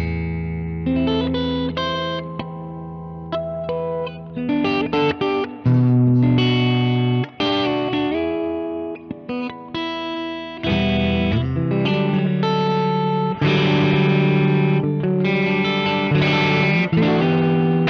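Leeky X25 electric guitar with both full humbuckers selected, played through a clean Mesa/Boogie Lone Star amp model on a Neural DSP Quad Cortex. It opens on a held chord, then moves into picked single-note lines and chords, playing louder from about ten seconds in.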